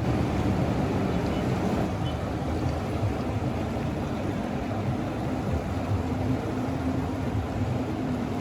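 Steady rushing and rumbling of the Ganga's fast-flowing water, an even noise with no breaks.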